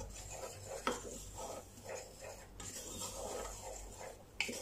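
Wooden spatula scraping and stirring dry flour in a metal pot as the flour is toasted on the stove until it turns reddish. Soft, irregular scrapes, with a sharper knock against the pot about a second in.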